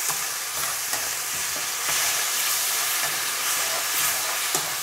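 Sweet and sour sauce base (onions, peppers and carrots with malt vinegar, ketchup and sugar) sizzling in a non-stick pan, stirred with a slotted plastic spatula that scrapes the pan now and then over a steady hiss.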